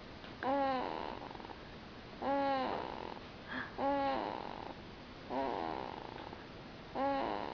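A sleeping baby snoring: five snores about a second and a half apart, each opening with a pitched, voice-like note and trailing off into a rasp. The mother wonders whether it comes from sleeping with the mouth open.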